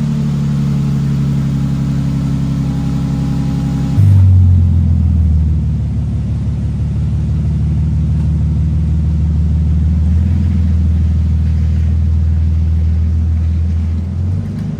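A 2022+ Toyota Tundra's twin-turbo V6 idling steadily through a newly installed aFe Vulcan stainless cat-back exhaust on its first start-up, a low, even tone. About four seconds in it turns louder and deeper and holds steady.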